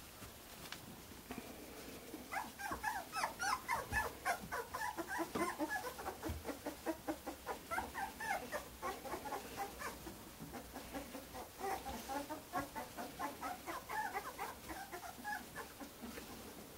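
Newborn Greater Swiss Mountain Dog puppies squeaking and whimpering: rapid runs of short, high-pitched cries that start about two seconds in, ease off briefly partway through, and fade near the end.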